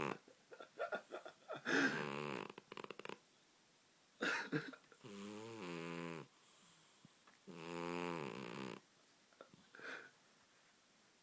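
Cat snoring in its sleep: short noisy breaths, then two longer pitched snores of about a second each in the second half.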